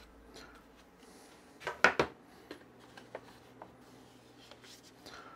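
A few light clinks and knocks of a metal spatula and a serving platter being handled, the loudest pair about two seconds in, then a few softer ticks, over quiet room tone.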